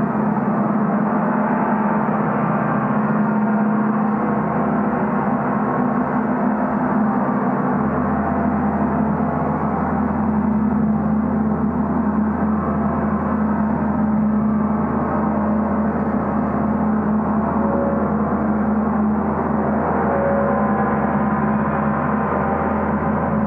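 Gong played continuously, a sustained dense wash of many overlapping tones with no separate strikes. A deeper low tone swells in about eight seconds in.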